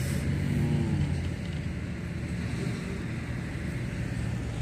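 Steady low rumble of outdoor background noise, with a short rising-and-falling tone about half a second in.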